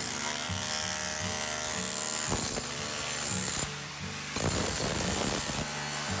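Electric chipping hammer driving a chisel bit into the joints of a stone wall, chiseling out old mortar, with a short break about four seconds in. Background music plays alongside.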